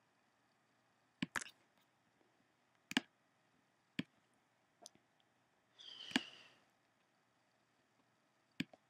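Computer mouse clicks, single and well spaced, about seven over several seconds, with a short hissing swish a little past the middle.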